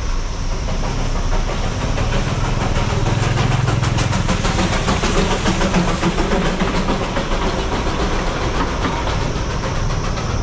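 Darjeeling Himalayan Railway toy train passing close by, its wheels clattering over the narrow-gauge roadside track with a steady low rumble, heaviest a few seconds in.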